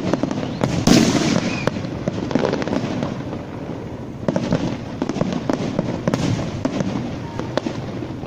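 Aerial fireworks display: many shells bursting in quick succession, a dense run of bangs and crackle over a rumbling background, with the loudest bang about a second in.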